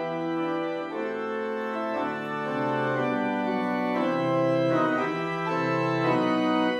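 Church organ playing the introduction to a hymn: held chords of several notes that change every second or so.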